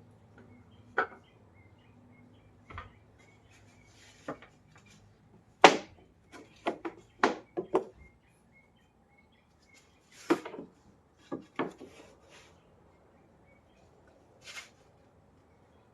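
Pieces of wood being handled and knocked together: a series of irregular sharp wooden knocks and clatters, the loudest about six seconds in, followed by a quick run of knocks, then a few more spaced out.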